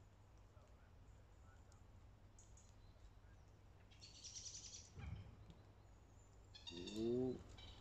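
Quiet lakeside ambience with small birds twittering, a brief high run of chirps about four seconds in. A low thump follows a second later, and a short, louder pitched call sounds near the end.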